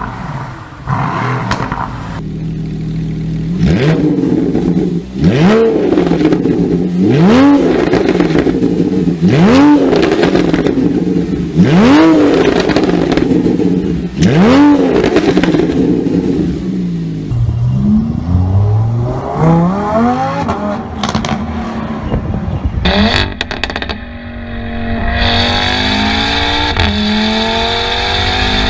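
A sports car's engine is blipped five times about two seconds apart, each rev rising and dropping back, with crackles and pops from the exhaust on the overrun. It is followed by a few smaller revs, then a car accelerating with a slowly rising engine note.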